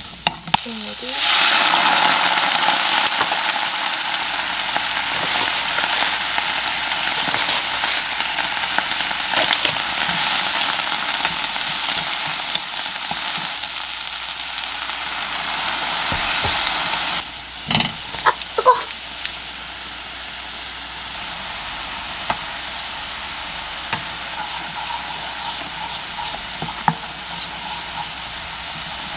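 Food sizzling in a nonstick frying pan as it is stirred with a wooden spoon. The hiss grows loud about a second in and stops abruptly a little past halfway. A few sharp clicks follow, then quieter steady sizzling of a milky mixture.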